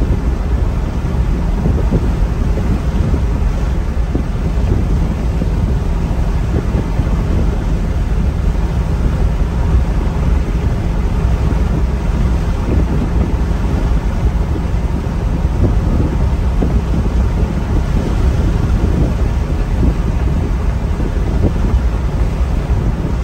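Steady low rumble inside a Maserati GranTurismo at highway cruising speed: the engine's drone mixed with tyre and wind noise, with no revving or gear changes.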